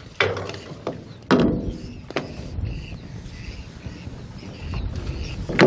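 Hollow knocks and thuds on a small boat as a bamboo pole and gear are handled against it: four in all, the last and loudest near the end, each ringing briefly.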